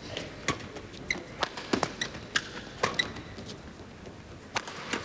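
Badminton rally: a quick, irregular run of sharp racket hits on a feather shuttlecock, a dozen or so, with a few short high squeaks of players' shoes on the court.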